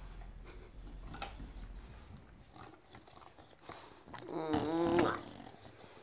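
English bulldog giving one short throaty vocalization, about a second long, roughly four and a half seconds in, while lying on his bed with a chew stick. Soft chewing and snuffling sounds come before it.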